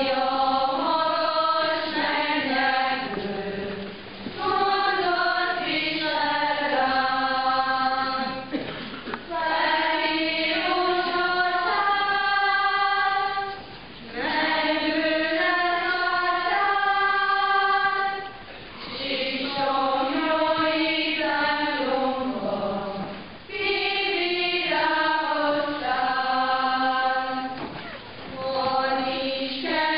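A group of voices singing a slow melody in unison, in sustained notes, phrase by phrase, with short breaths about every four to five seconds.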